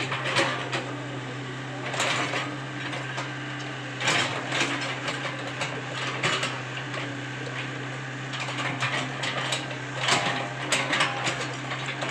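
Komatsu PC75UU hydraulic excavator working, its diesel engine running at a steady hum while metal clanks and rattles come through repeatedly, in clusters about every two seconds.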